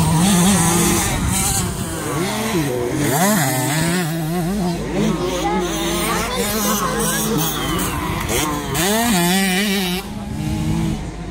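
Small two-stroke 65 cc motocross bikes racing, their engines running at high revs with the pitch rising and falling as the riders work the throttle, more than one bike heard at once. The engines rev up sharply a couple of seconds in and again near nine seconds, then fade a little.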